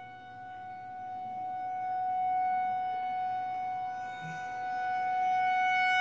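Tornado siren sounding one steady tone, growing louder about two seconds in, dipping a little near four seconds, then rising again.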